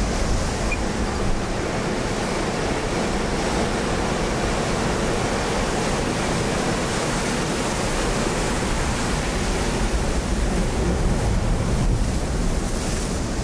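Steady ocean surf washing against the rocks below a cliff, with wind buffeting the microphone in a heavy, fluttering low rumble.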